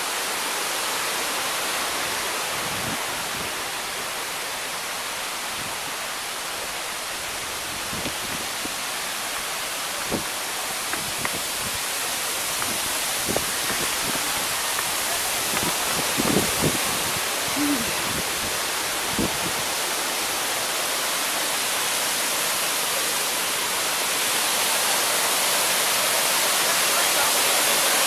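Haginit Falls, a cascading waterfall, rushing steadily into its pool, growing a little louder in the last few seconds. A few soft footfalls on a rocky path come through in the middle.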